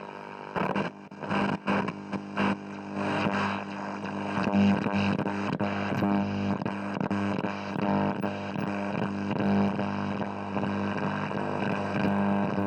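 Vintage wooden valve radio tuned to shortwave, giving a steady buzzing drone with a pulsing, warbling pattern over it. A few sharp crackles sound in the first couple of seconds.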